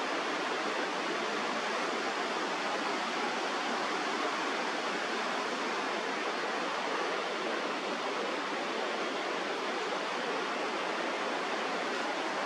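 Steady rush of a mountain river's flowing water, an even hiss that does not let up.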